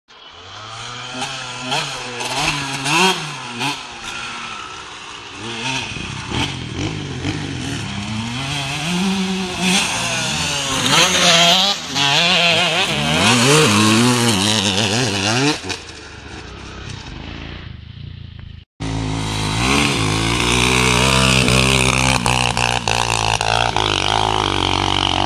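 Motocross dirt bike engines revving, their pitch rising and falling again and again as the throttle is worked, loudest about halfway through. Near the end the sound breaks off for a moment and comes back with an engine running more steadily.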